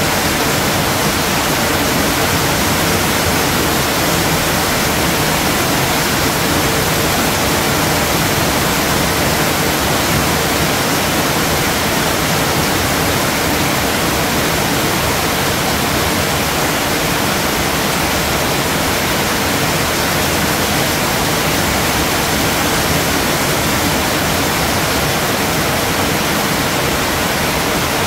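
Steady heavy rain: a dense, even hiss with no breaks or single drops standing out.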